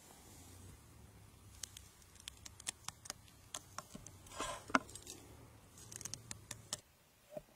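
Faint handling sounds of hands working food on a wooden cutting board: scattered light clicks and ticks, with a short rustling scrape about four and a half seconds in. A low steady hum underneath stops near the end.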